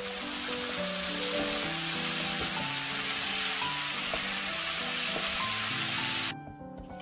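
Pork belly and scallions in chili sauce sizzling loudly as they are stir-fried in a hot nonstick frying pan. The sizzle cuts off suddenly near the end.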